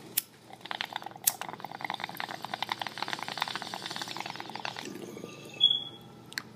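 Water bong bubbling rapidly for about four seconds as smoke is drawn through it, after two sharp clicks.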